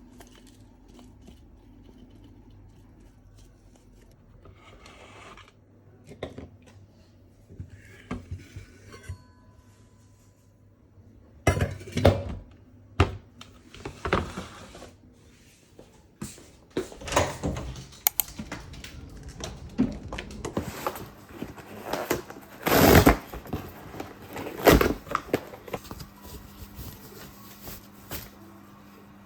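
A faint low hum, then from about a third of the way in, irregular knocks and clinks of hard objects being handled, like dishes or utensils being moved about.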